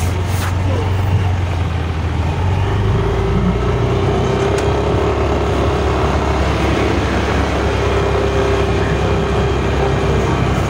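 Yamaha Mio Aerox S 155 scooter's 155 cc single-cylinder engine running while being ridden, a steady drone with a held engine tone.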